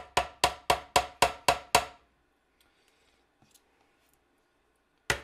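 A spoon rapping on the rim of a plastic blender jar to knock Greek yogurt off it: a quick run of sharp, ringing taps, about four a second, for about two seconds. One more tap comes near the end.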